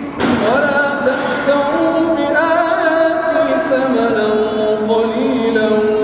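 A man's solo Quran recitation in a melodic chant, holding long drawn-out notes with ornamented turns; a new phrase begins just after the start.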